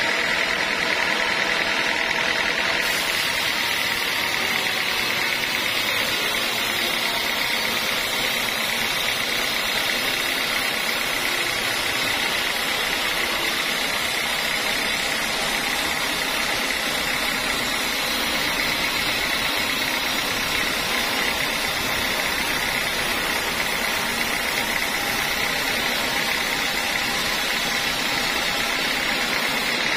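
Sawmill band saw running steadily: a constant mechanical drone with an even high whine.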